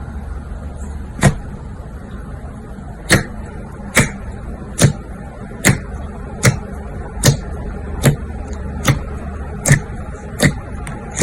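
Slime being pressed and poked by hand, giving a sharp pop roughly every second over a steady low background hum.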